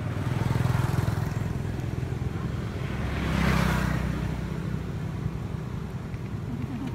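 A motor vehicle's engine running steadily, growing louder about a second in and again around three and a half seconds in.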